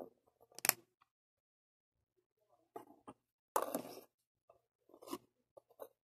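LEGO plastic pieces being handled and pressed together: a string of short plastic clicks and clatters, with a pause of about a second and a half near the start. The longest and loudest clatter comes a little past the middle.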